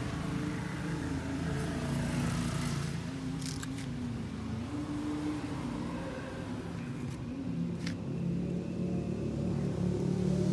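A motor vehicle's engine running, its pitch shifting up and down a little and growing louder near the end, with two short clicks in between.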